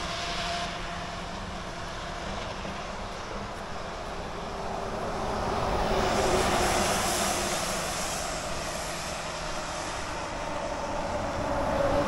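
An engine-driven vehicle passing by, its sound swelling to a peak about six to seven seconds in and then fading, with its pitch dropping as it goes past.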